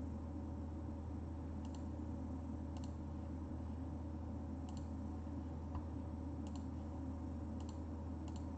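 Steady low hum of room tone with about six faint, sharp clicks at irregular intervals and one soft knock about two-thirds of the way through.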